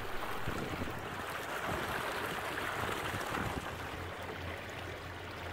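Steady wash of river water running along the side of a moving houseboat's hull, with a low hum underneath from about halfway through.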